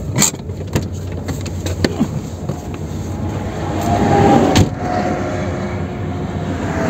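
Steady engine and road hum heard from inside a car creeping along the shoulder, with a few sharp clicks in the first two seconds. An oncoming semi-truck then passes close by, its noise swelling to a peak about four and a half seconds in before falling away.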